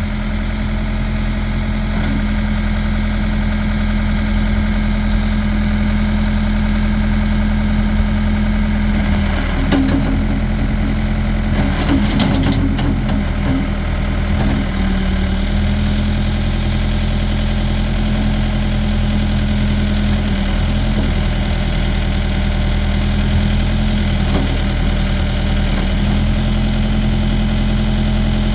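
Ford 555C loader backhoe's four-cylinder diesel engine running steadily. Around the middle there is some clattering, and the engine note briefly dips.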